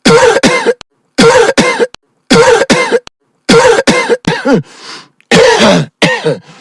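A person coughing loudly in quick pairs, a new pair about every second, with a run of three coughs and a short breathy intake of air later on.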